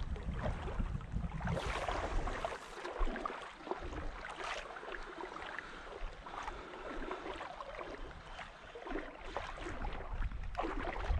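Shallow seawater sloshing and splashing, with wind noise on the microphone and a few sharper splashes through it.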